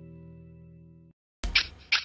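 Background music's last held chord fading out, then after a short gap a sharp click and two short, bright bursts of sound about half a second apart: the opening of a logo sting.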